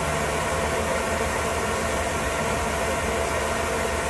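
Steady rushing, hiss-like air noise with a low hum underneath, unbroken throughout.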